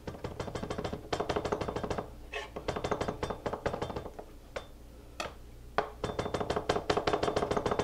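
Santoku knife rock-chopping garlic into a fine mince on a plastic cutting board: fast runs of knocks, about ten a second, in three bursts with a few single taps in between.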